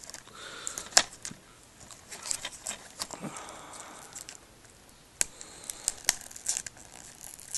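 Plastic shrink-wrap on a DVD case crinkling and tearing as it is picked at and pulled open, with scattered sharp clicks from the case being handled.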